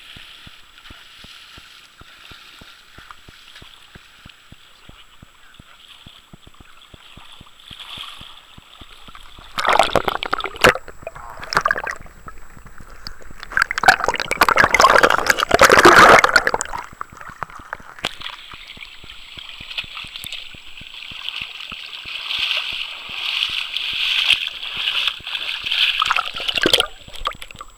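Flowing river water rushing steadily. About a third of the way in, loud sloshing and gurgling lasts several seconds as the phone is dipped into and under the water, then the steady rush of the current returns.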